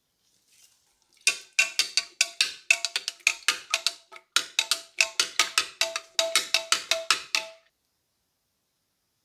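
Metal spoon stirring liquid in a glass jar, clinking quickly against the glass about five times a second, each clink ringing briefly. It starts about a second in and stops near the end.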